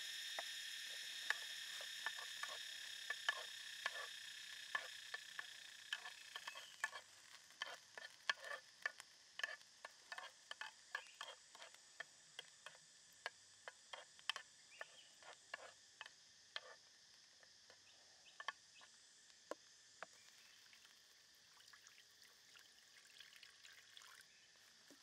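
Shallots and garlic frying in oil in a metal pan: a steady sizzle that fades over the first several seconds, with many sharp pops and clicks of spattering oil and the metal spoon stirring. The pops thin out after about seventeen seconds, leaving a faint crackle.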